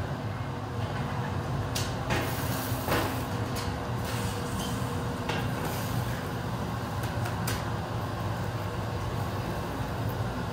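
Steady low drone of a hot-glass studio's furnace burners and ventilation fans, with a few light knocks and clicks scattered through the first several seconds.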